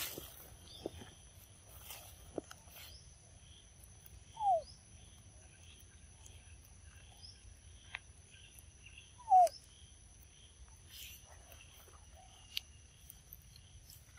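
Young monkeys give two short falling squeaks, about four and a half and nine and a half seconds in, while feeding on mango. Behind them runs a steady high insect drone with a chirp pulsing about twice a second, and a few small clicks.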